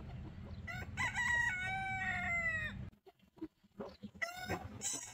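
A rooster crowing once, one long cock-a-doodle-doo of about two seconds starting about a second in, followed by a few short hen clucks near the end.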